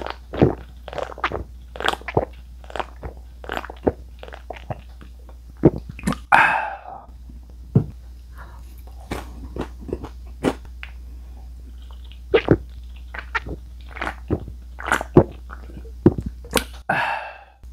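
Close-miked eating and drinking sounds: gulps of beer from a can, then chewing with many sharp wet mouth clicks, then another swig. Two longer breathy sounds, one about six seconds in and one near the end, follow the swigs.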